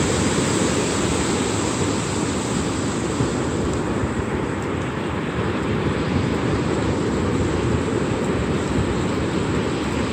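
Steady rushing noise of ocean surf and wind on the microphone.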